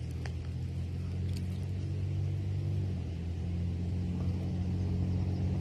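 A motor running steadily at idle, a low even hum, with a couple of faint clicks in the first second and a half.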